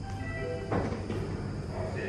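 A short electronic chime of several notes stepping downward, of the kind that comes before a metro announcement or door closing, followed by a single sharp knock about three quarters of a second in. A steady low hum from the standing train and station runs underneath.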